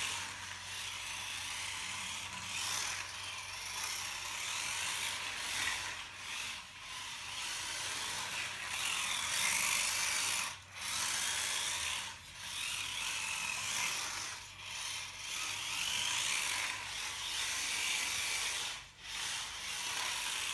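A micro RC car's small electric motor and gear train whining as it is driven in a drift session. The whine drops out briefly several times as the throttle is let off.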